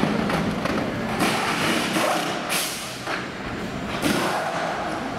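Racing pit crew's tyre-change noise: four short, sharp bursts and thumps roughly a second or so apart, from wheel guns and wheels being handled at the car, over a busy pit-lane din.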